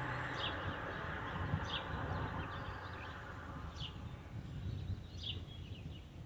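Outdoor ambience before a storm: a low, rumbling wash of wind noise that eases off, with a few short, high bird chirps scattered through it.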